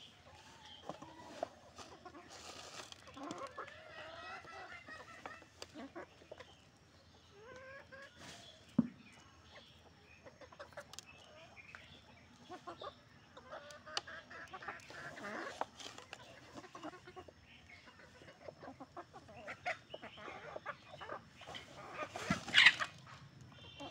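Domestic hens clucking softly and intermittently while they forage, with scattered sharp clicks and a louder, sharper burst of sound near the end.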